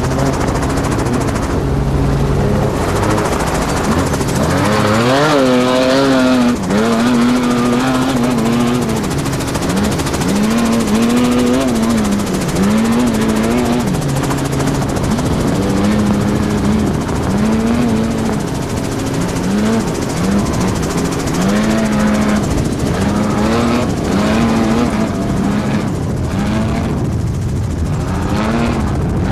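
Helicopter rotor and engine noise with an off-road race truck's engine below, its pitch rising and falling over and over, about every two seconds, as it revs up and backs off along the course.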